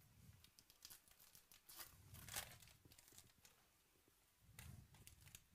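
Faint crinkling and tearing of a trading-card pack wrapper being ripped open, the loudest rip about two and a half seconds in. Near the end comes the lighter rustle of the cards being handled.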